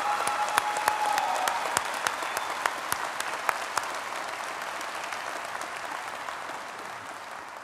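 Large audience applauding, with a few loud single claps standing out close by; the applause slowly fades toward the end.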